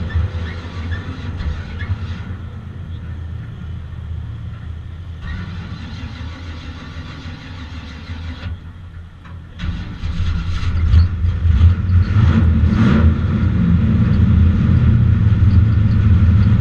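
Bomber-class stock car engine idling with a steady low rumble, turning louder about ten seconds in.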